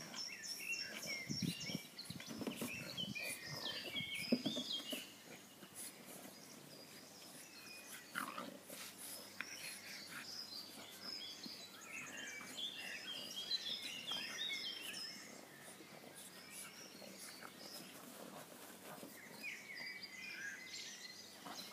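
A French bulldog and a second small dog play-wrestling, with snuffling and grunting play noises loudest in the first five seconds. Birds chirp in the background at times.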